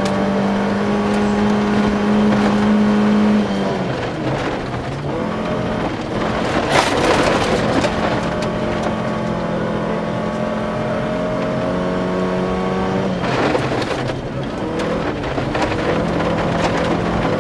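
Volvo 240 rally car's engine heard from inside the cabin, running hard at high revs on a gravel road. The engine note breaks off and changes about three and a half seconds in and again about thirteen seconds in, with a rush of gravel and road noise at about seven seconds.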